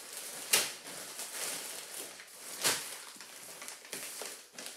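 Plastic packaging crinkling and rustling as a sweater is pulled out of its plastic mailer bag and paper envelopes are handled, with two sharp, loud crackles of plastic, the first about half a second in and the second near the three-second mark.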